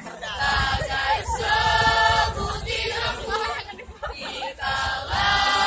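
Mixed choir of teenage voices singing in harmony, holding one chord for about a second, with a short break about two-thirds of the way through before the singing picks up again.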